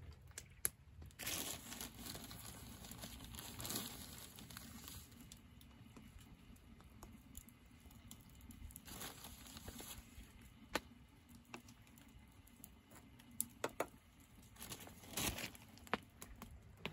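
Faint crinkling and tearing of a bag in several bursts, with small clicks and knocks, as ground coffee is put into a pour-over coffee dripper.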